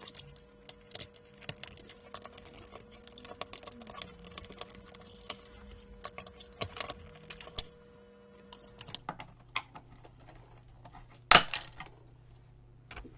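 Light, scattered clicks and taps of hand tools and components being handled during a teardown, with one sharper knock about eleven seconds in.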